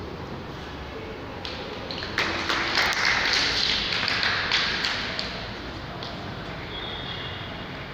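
Spectators clapping in a sports hall: a short round of scattered claps about two seconds in, lasting roughly three seconds before fading out.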